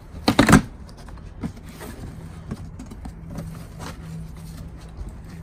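Cardboard box being opened by hand: a loud scrape of the top flaps about half a second in, then lighter rustles and taps of cardboard. A faint steady low hum runs underneath in the second half.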